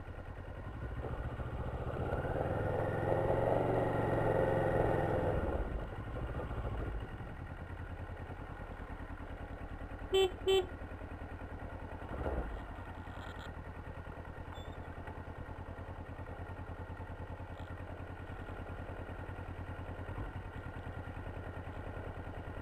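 A vehicle engine running steadily, louder in the first few seconds with a slowly rising whine. Two short horn beeps sound about ten seconds in, and there is a single thump a couple of seconds later.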